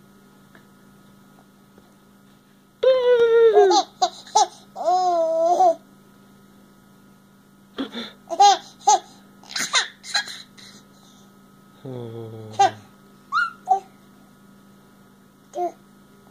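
Baby laughing and squealing in high-pitched bursts, a long one about three seconds in and shorter ones after, over a faint steady electrical hum.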